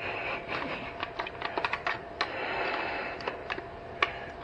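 Irregular small clicks and taps of hand tools and metal parts being handled, with a brief scraping rustle in the middle and one sharper click near the end.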